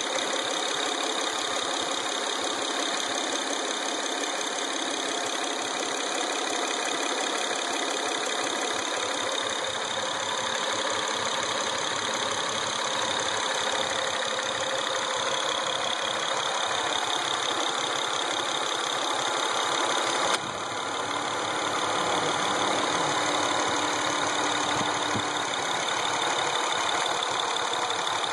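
Acura TL engine running steadily at idle, with an abnormal noise that the owner says doesn't sound right.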